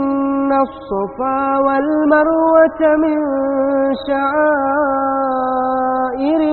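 A single voice reciting the Quran in a slow, melodic chant, holding long drawn-out notes with small ornaments, broken briefly about a second in and again about four seconds in.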